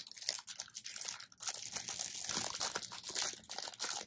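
Clear plastic candy wrapper crinkling in the hands as a chocolate is unwrapped, a busy run of small crackles with brief pauses.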